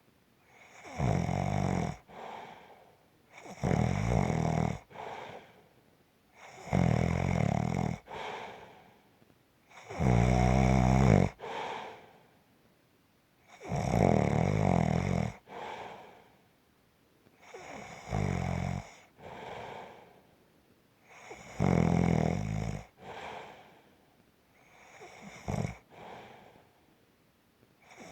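A person snoring in a slow, regular rhythm. A loud snore comes about every four seconds, and each is followed by a shorter, softer breath sound.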